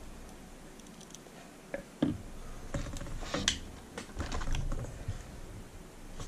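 Irregular small clicks and knocks of hard plastic RC parts as a Clod Buster wheel hub is worked by hand onto the truck's splined stub axle, trying to get it to line up.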